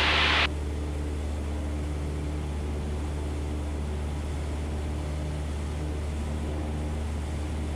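Cessna 172's piston engine droning steadily in the cockpit during a low approach over the runway. A short burst of radio hiss cuts off about half a second in.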